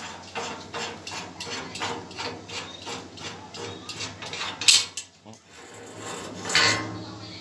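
Metal clicking, about three clicks a second, as a screw clamp is worked onto steel square tubing. Two louder short bursts of noise follow, about halfway through and near the end.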